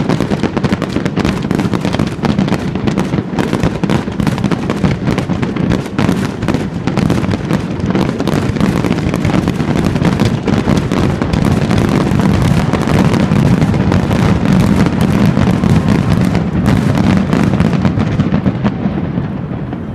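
Fireworks going off in a dense, rapid barrage of overlapping bangs and crackles that thins out near the end.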